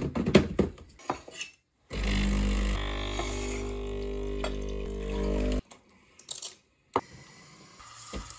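Metal clicks and knocks as a portafilter is locked into an espresso machine, then the machine's pump runs with a loud, steady drone for about three and a half seconds while a shot is pulled, cutting off sharply. A few clicks follow, and a faint hiss builds near the end.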